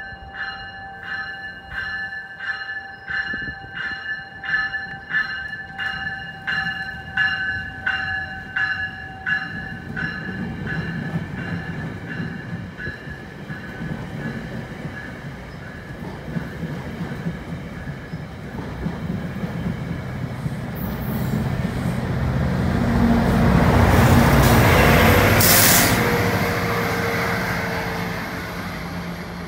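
GO Transit bi-level commuter train and its diesel locomotive passing along the platform. A bell rings at an even pace for the first ten seconds or so. Then the cars roll past with a rising rumble that is loudest with a burst of hiss about 24 seconds in, and fades as the train pulls away.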